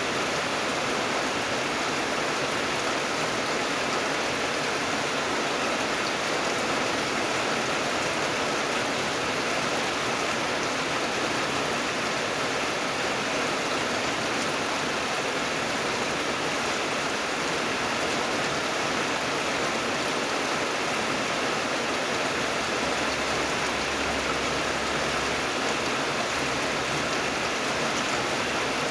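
Steady rain falling, an even hiss with no separate drops or gusts standing out.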